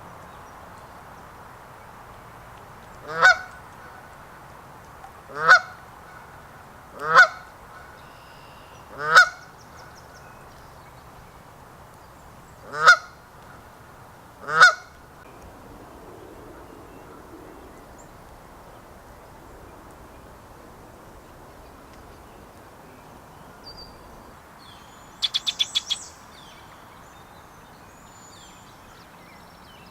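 Goose honking six times over about twelve seconds, each honk a short call that rises in pitch. Near the end comes a short rapid burst of high clicking notes from another bird.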